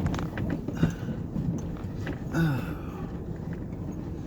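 Truck driving slowly over rough ground: a steady low engine and road rumble with scattered knocks and rattles. A brief falling pitched sound comes about two and a half seconds in.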